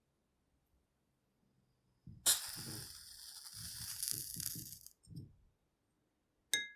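A match struck about two seconds in, catching with a sharp scratch and then hissing as it flares and burns for about three seconds. Near the end comes a short, sharp click with a ringing tone.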